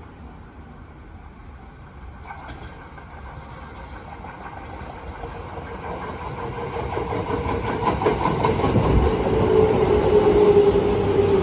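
Tobu 9000-series electric train departing and picking up speed, growing steadily louder. A steady whine from its armature-chopper control comes in during the second half, with wheel clatter on the rails.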